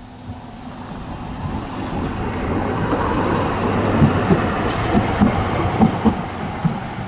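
Articulated electric tram passing at close range: its rolling noise swells as it approaches. About halfway through, a run of clacks begins as its wheels go over the rail joints.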